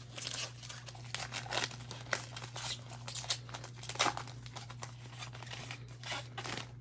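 Foil wrapper of a football trading-card pack crinkling and tearing as it is ripped open by hand, with irregular crackles throughout and a low steady hum underneath.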